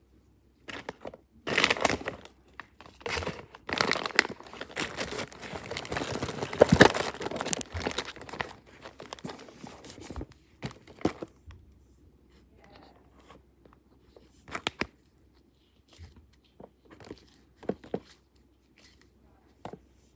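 Close-up crinkling, tearing and crunching as hands work something crackly. It is dense and continuous from about a second in until about ten seconds, loudest near the middle, then thins out to scattered short crackles and clicks.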